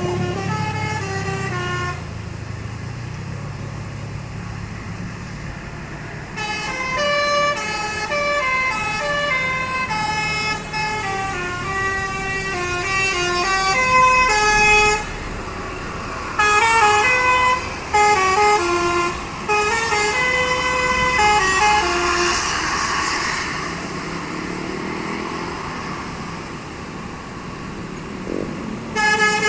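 Bus 'telolet' musical air horn playing a tune of quick stepped notes, in several phrases with short gaps. Under the opening notes a low engine hum can be heard.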